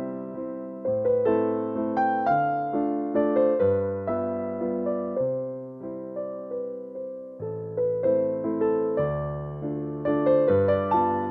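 Background music: a gentle electric piano playing a melody over sustained bass notes.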